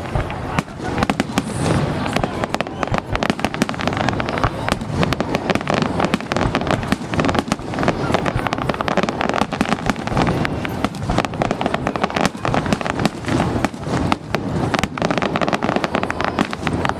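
A fireworks display going off: a dense, continuous run of sharp crackling bangs, many per second.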